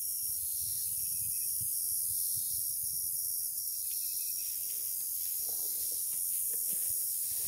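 Steady high-pitched chorus of insects, with one pulsed chirp repeating at an even pace through it.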